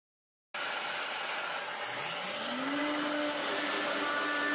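An electric motor running, starting abruptly about half a second in with a steady rushing noise; its hum rises in pitch for about two seconds as it spins up, then holds steady.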